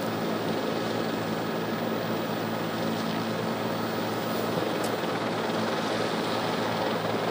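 Steady aircraft engine drone: an even rushing noise over a constant low hum, with no change in level.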